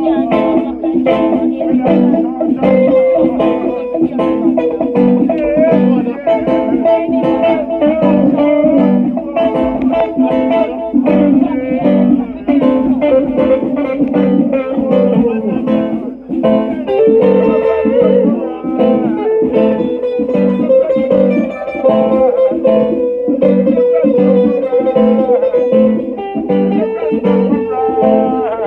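Band playing a blues-style tune, led by guitar with bending lead notes over a steady rhythm.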